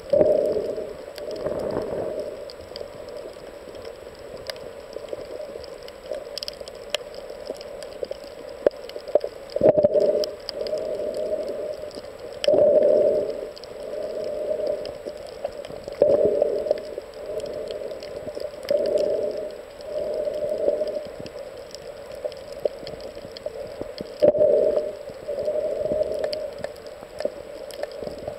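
Muffled underwater sound of the filming swimmer's breathing: a rushing burst every two to four seconds over a steady hiss.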